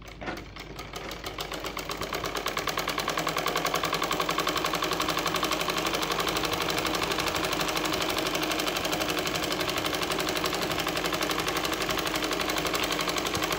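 Black domestic sewing machine stitching a seam in cotton fabric: it picks up speed over the first couple of seconds, then runs at a steady, rapid stitching rhythm.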